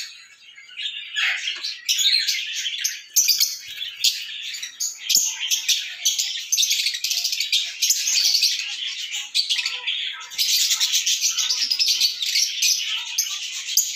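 A dense chorus of many small birds chirping and twittering without a break, high-pitched.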